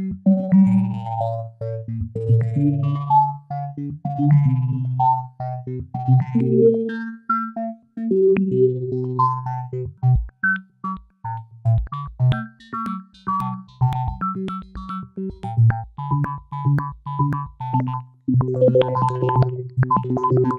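Make Noise Eurorack modular synthesizer patch, with notes set off by the PoliMATHS, playing a patterned run of short pitched notes over a lower bass line. It thins out with brief gaps about halfway through and fills out again near the end.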